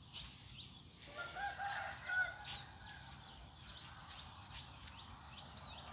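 A rooster crowing once, starting about a second in and lasting about a second and a half. Small birds keep up short, repeated high chirps throughout.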